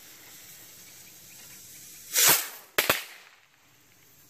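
Texas pop bottle rocket firing: a brief loud rushing burst about two seconds in, then two sharp pops in quick succession.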